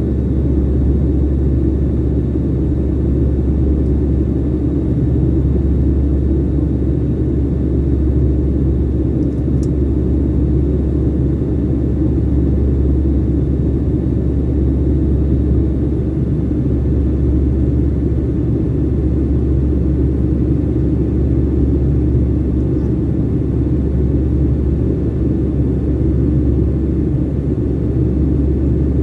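Steady low rumble of engine and airflow noise inside an airliner's cabin in flight after take-off, with a faint click about ten seconds in.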